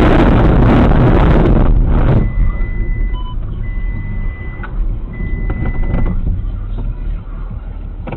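A car's noise, heard from inside, runs loud for about two seconds, then drops suddenly to a quieter low hum. Over the hum come three long, high electronic beeps, each about a second long.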